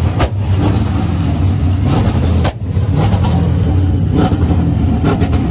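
Chevrolet C6 Corvette's V8 running at idle with a steady low exhaust rumble, which drops off briefly about halfway through.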